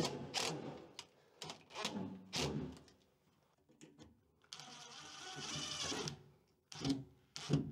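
DeWalt cordless drill driving screws into a trap door frame: a few short spurts of the motor, one steady run of nearly two seconds in the middle, and two more short spurts near the end.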